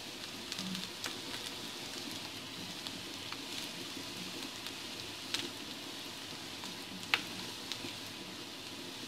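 Large pot of potatoes, stewed goose meat and fried carrot and onion simmering on the stove: a steady hiss with scattered small pops and bubbles, and a couple of sharper clicks a little past halfway.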